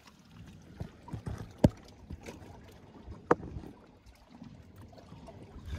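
Camera handling noise as it is pushed into a rock crevice: low rubbing and scraping, with two sharp knocks, about a second and a half in and again a little past three seconds, as it bumps the rock.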